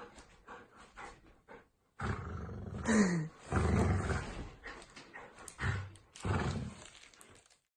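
Golden retriever grumbling in several low bursts, with a short falling whine about three seconds in.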